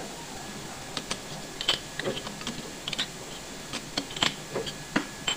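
Irregular light metallic clicks and clinks, a dozen or so over about four seconds beginning a second in, as steel tooling is handled at a metal lathe's toolpost.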